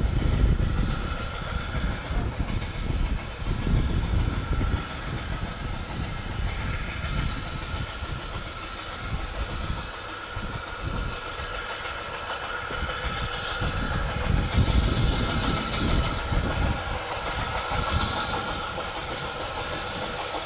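Steam train running on the line: a heavy, uneven rumble that swells and eases, with a steady higher tone above it.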